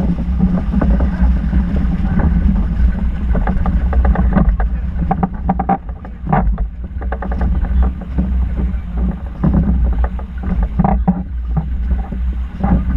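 Wind buffeting the microphone on a sailing yacht under way, over water rushing along the hull, with irregular short knocks and splashes.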